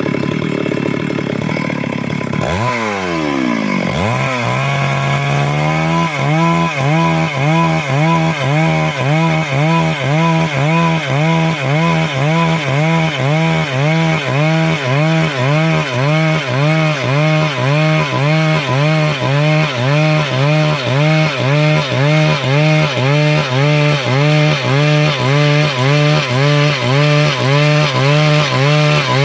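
Stihl MS 382 two-stroke chainsaw cutting lengthwise through wood at high revs. About two and a half seconds in, its pitch drops sharply and climbs back. From about six seconds in, the pitch and loudness rise and fall evenly, about three times every two seconds, as the chain works through the cut.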